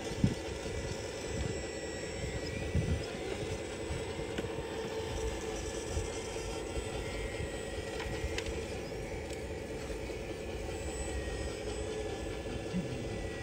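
Steady whining drone of a 1:14 CAT 374F RC excavator's motors working as it digs soil, with irregular low rumbles underneath.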